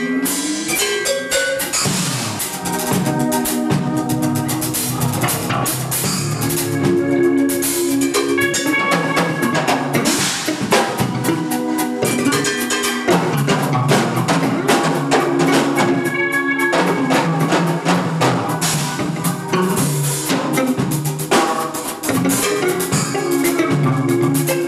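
Live band playing an instrumental passage with no singing: a drum kit keeps a steady beat of kick and snare under electric guitar and bass.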